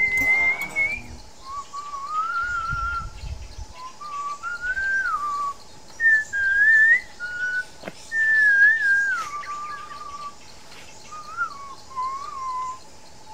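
A person whistling clear single notes that rise and fall slowly in short phrases of about a second, with pauses between them.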